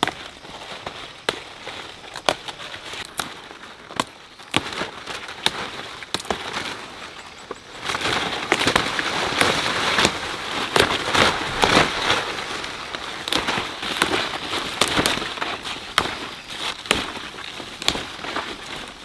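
Leafy branches and large leaves rustling and snapping as they are pulled and gathered by hand: scattered sharp cracks, then a denser, louder crackling rustle from about eight seconds in.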